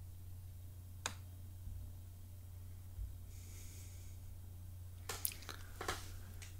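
Quiet room tone with a steady low hum, a sharp click about a second in, a faint hiss around the middle, and a few small clicks near the end.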